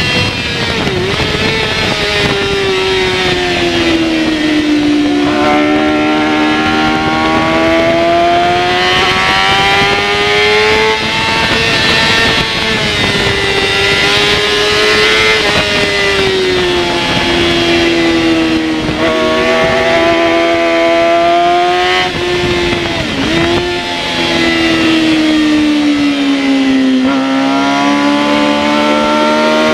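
Yamaha R6 inline-four race engine heard onboard at racing speed, its pitch climbing under acceleration and sinking through corners and braking, with a few sharp breaks in pitch at gear changes. A steady rush of wind noise lies under it.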